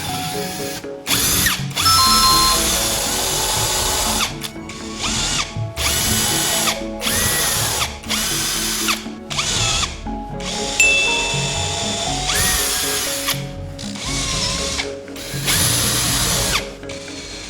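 Electric drill running in about ten short bursts, switched on and off repeatedly, its pitch climbing and falling as it spins up and down at each start and stop. Background music plays underneath.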